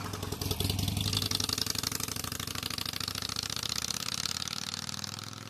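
Harley-Davidson Sportster 883's V-twin engine pulling away close by, its firing pulses fading steadily as the motorcycle rides off down the street.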